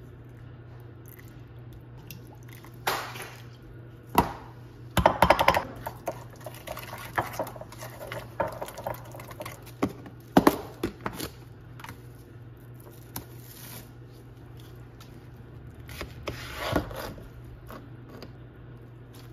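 Kitchen handling noises: scattered clicks and clatters of a plastic food storage container and utensils being handled on a countertop, with a quick run of clicks about five seconds in. A low steady hum runs underneath.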